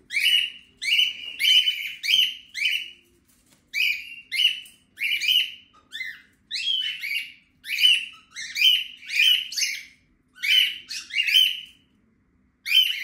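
Pet cockatiels calling loudly: a run of short, harsh, repeated screeching calls, about two a second, broken by a few short pauses.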